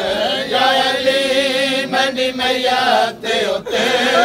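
Group of men chanting a Punjabi noha (mourning lament) together, the lead reciter reading from a book, several voices overlapping in a wavering chant, with two short breaks about three seconds in.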